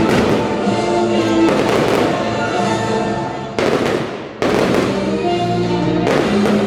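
Aerial fireworks bursting several times over music with long held notes.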